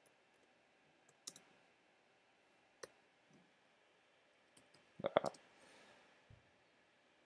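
Taps on an iPad's touchscreen while typing on the on-screen keyboard: a few sparse soft clicks, then a quick cluster of louder clicks about five seconds in.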